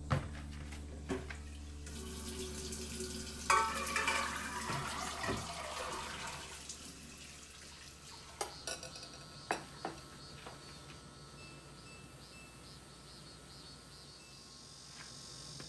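Kitchen tap running and water splashing into a glass bowl of soaked soybeans for a few seconds. Then a few light clinks of dishes, and a short series of beeps from an induction cooktop's touch controls.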